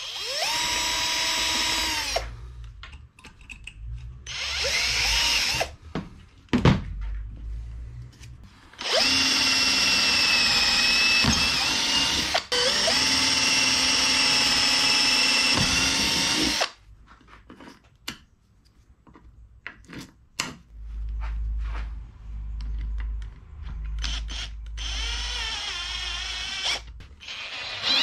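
Cordless drill running in separate runs while drilling through a wooden block: a short burst at the start, another about four seconds in, then a long steady run of about seven seconds with a brief dip in the middle. Quieter low knocks and a short run follow near the end.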